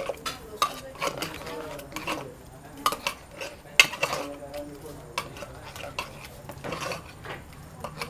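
Metal spoon scraping and knocking against the inside of a metal pressure cooker pot while mashing and stirring thick boiled urad dal. The clinks and scrapes come irregularly, with the sharpest knocks about three and four seconds in.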